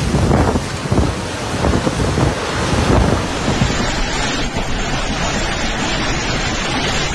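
Storm-force wind gusting, with heavy buffeting on the microphone and a dense rushing noise of wind and rain.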